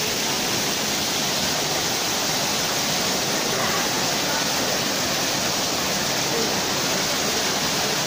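Waterfall cascading down basalt columns onto rocks: a steady, even rush of falling and splashing water.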